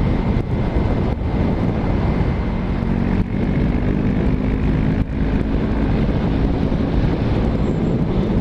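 Yamaha motorcycle engine running at a steady cruising speed, with wind rushing over the helmet microphone; the engine note dips briefly a few times.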